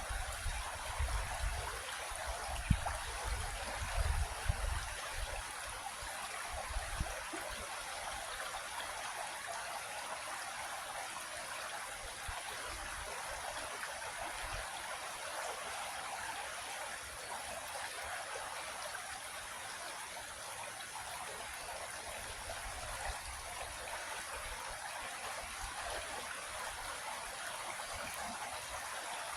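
Creek water flowing with a steady rush. A few low rumbles and knocks sound in the first seven seconds or so.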